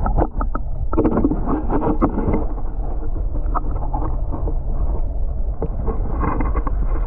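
Water heard with the microphone under water: a muffled, steady low rumble with many small clicks and knocks.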